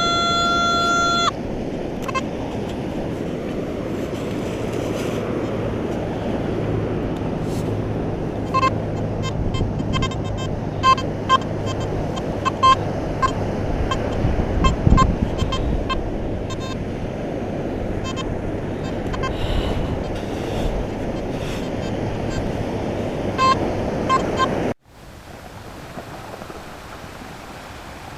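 Nokta Makro Simplex metal detector sounding through its built-in speaker with short, irregular beeps over a steady rush of surf and wind. The beeps are the detector's noisy chatter on the beach rather than a clean target signal. The sound cuts to a quieter hiss near the end.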